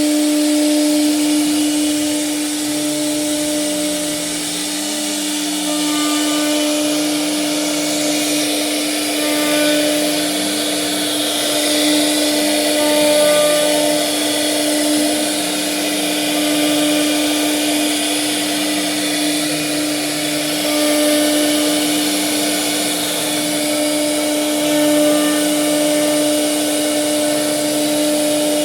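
CNC router carving wood: the spindle runs with a steady whine over a hiss of cutting, while a lower tone steps up and down again and again as the machine moves through the pattern.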